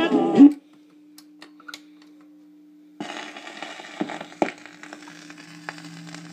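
A 1956 RCA 7HF-45 record player's music cuts off about half a second in. A steady low hum with a few faint clicks follows while the 45 rpm changer cycles. About three seconds in, the stylus sets down on the next record, and surface hiss and crackle from the lead-in groove follow, with two louder pops.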